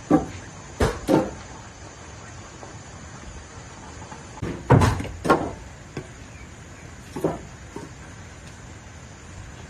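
Sharp knocks of firewood being handled, coming irregularly: one at the start, two close together about a second in, the loudest pair around the middle, and a single one later, over a steady background hiss.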